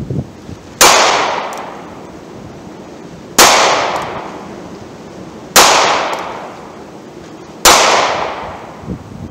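Four shots from a North American Arms mini revolver firing .22 Magnum (.22 WMR) rounds, about two seconds apart. Each is a sharp crack whose echo fades over about a second.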